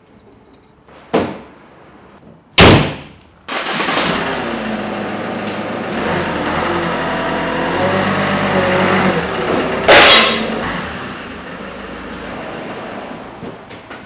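A car door is shut with a loud thud, then the Ford Mondeo Mk5's engine starts about a second later and runs, its pitch rising and falling. A second loud thud comes about ten seconds in, after which the sound fades.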